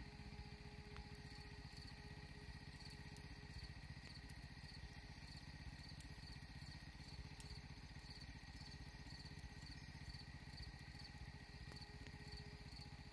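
Faint insect chirping, a high pulse repeating in a steady, even rhythm over a low background hum of the open field.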